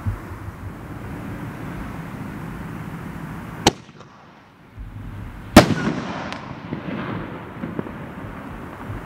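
Sir Lancelot consumer firework going off: a steady rushing noise, a sharp bang a little over three and a half seconds in, then after a short lull the loudest bang, followed by a few smaller pops as the noise fades.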